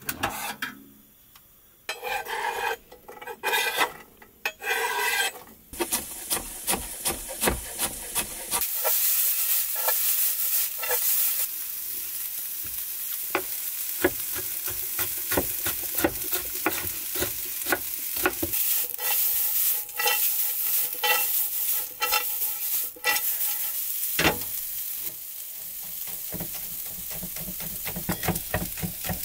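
Vegetables frying in a pan on a gas stove, a steady sizzle that sets in about a third of the way through. Over it come many quick knocks of a knife chopping on a wooden board and the scrape of stirring.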